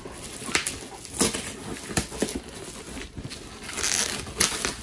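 Plastic bubble wrap around a parcel crinkling and crackling under the fingers in irregular bursts, with a few sharper clicks, loudest near the end.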